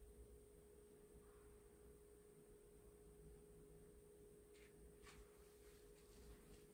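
Near silence: room tone with a faint steady tone, and a few faint ticks in the last couple of seconds.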